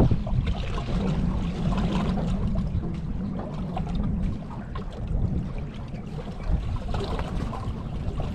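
Water lapping and trickling against a fishing boat's hull, over a steady low rumble of wind on the microphone.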